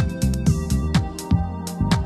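Electronic dance music with a heavy, regular kick-drum beat and a deep bass that drops in pitch after each hit.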